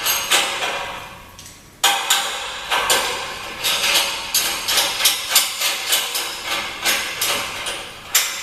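A metal truss clamp knocking and clicking against the truss tubing as it is handled, fitted and tightened. It is an irregular run of sharp metallic knocks, about two or three a second, with a brief lull about a second in.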